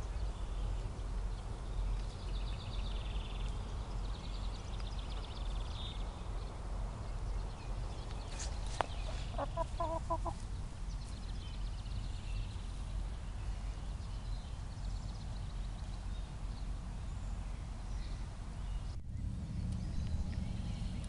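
Hens clucking softly as they forage, with a short run of clucks about ten seconds in, over a steady low rumble.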